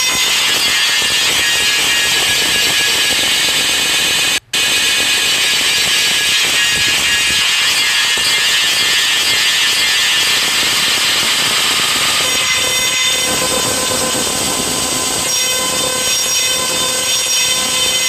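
Black MIDI playback: thousands of synthesized soundfont piano notes sounding at once, merging into a dense, noise-like wall of sound with no distinct melody. The sound drops out for a split second about four and a half seconds in.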